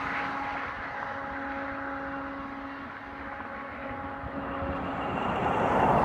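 Distant freight train horn blowing long blasts, a single held pitch broken twice by short gaps, over a low rumble. A rush of noise swells near the end.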